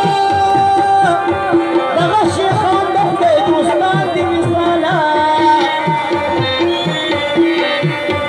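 Live Pashto folk dance music: a tabla-style hand drum beats a steady, quick rhythm under a melody that bends and slides between long held notes.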